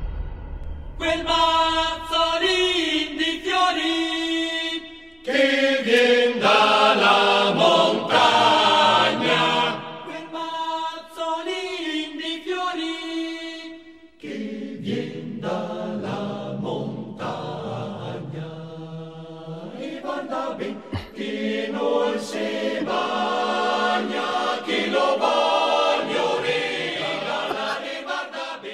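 Chant-like singing: long, held vocal notes stepping from pitch to pitch, in phrases broken by short pauses about five and fourteen seconds in.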